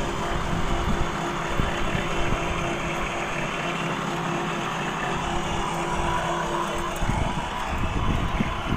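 Steady machine noise with a motor hum running at one pitch, the hum cutting out about seven seconds in.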